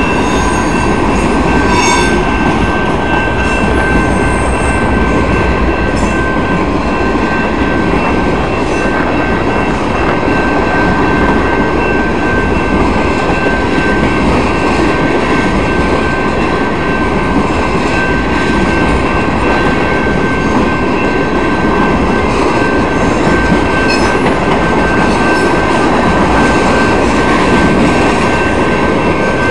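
Freight train cars rolling past at a railroad crossing: a steady loud rumble and rattle of wheels on rail, with a continuous high-pitched tone over it and a few faint clanks.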